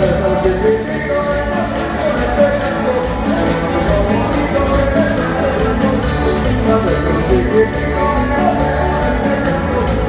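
Live cumbia band playing dance music: electric bass, conga drums and other percussion keeping a steady beat under melodic lines.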